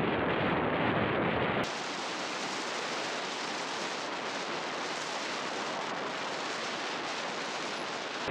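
Wind rushing over the microphone of a moving two-wheeler: a steady, noisy rush with no distinct engine note. About a second and a half in it changes abruptly to a thinner, hissier rush with less low rumble.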